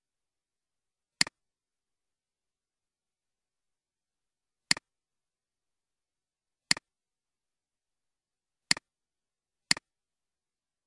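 Five sharp computer mouse button clicks at uneven intervals, each a quick click with a softer second tick right after it, with dead silence between them.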